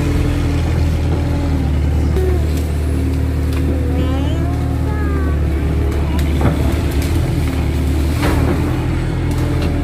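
Kato crawler excavator's diesel engine running with a steady low drone. Brief rising and falling whines come about four to five seconds in, and a couple of sharp knocks follow later.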